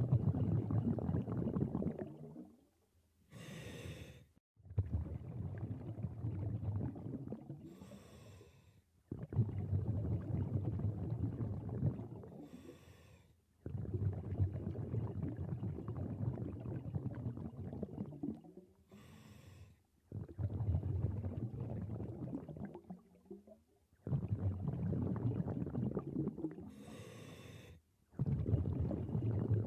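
Scuba diver breathing through a regulator underwater: a short high hiss on each inhale, then a long burbling rush of exhaled bubbles lasting three to four seconds. About five breaths.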